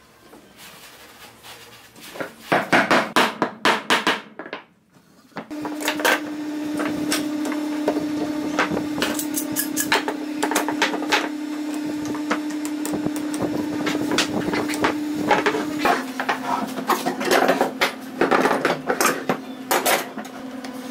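A quick series of hammer taps on wooden boards, then the scattered metal clicks and clanks of steel bar clamps being slid into place and tightened on a glued-up wooden panel, over a steady low hum.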